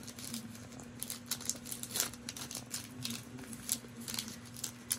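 Foil booster-pack wrapper crinkling and tearing as it is worked open by hand: an irregular run of small crackles and rustles, over a faint steady hum.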